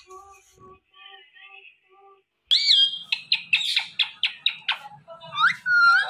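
Rose-ringed parakeet chirping and whistling: rapid chirps and sharp rising whistles, starting abruptly about two and a half seconds in. Before that, a few faint, evenly spaced tones.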